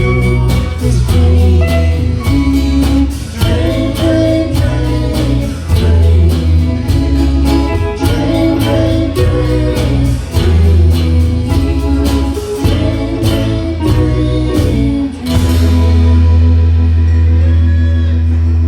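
Live band playing a song with singing, guitar, bass and a steady drum beat, ending about 15 seconds in on a long held final chord.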